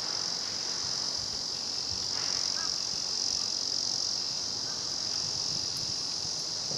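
Cicada calling: a steady, unbroken high buzz.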